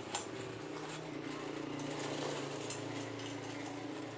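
A steady low mechanical hum from a running machine, with one light metallic knock near the start as steel pipe parts of a mower frame are handled.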